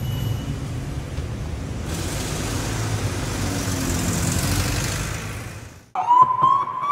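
A low rumble with a hiss that swells from about two seconds in, then cuts out. A siren wail starts just before the end, rising in pitch, with sharp clicks in a steady rhythm, as in an electronic remix of a public warning siren.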